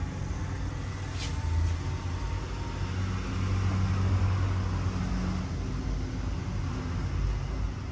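Road traffic with a low engine rumble that swells for a couple of seconds midway, and a couple of short sharp clicks about a second in.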